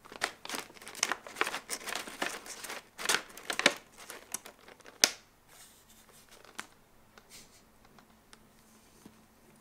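Brown kraft paper bag crinkling and rustling as a cat paws and shifts about inside it: a run of loud crinkles for about five seconds that ends in one sharp crackle, then only faint, scattered rustles.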